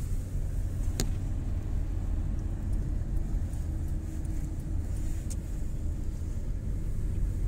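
Car driving on the road, heard from inside the cabin: a steady low rumble of tyres and engine, with a single sharp click about a second in.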